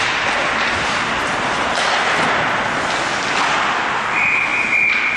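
Ice hockey play in an arena: a steady wash of skate scraping and crowd noise, with a few sharp clicks of sticks on the puck. About four seconds in, a steady high whistle tone starts, a referee's whistle stopping play as a goal goes in.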